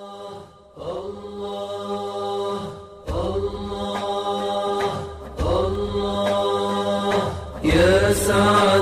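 Voices chanting an Arabic devotional qasida in long, drawn-out held notes over a steady low drone, in four phrases that each begin about two seconds apart and grow louder toward the end.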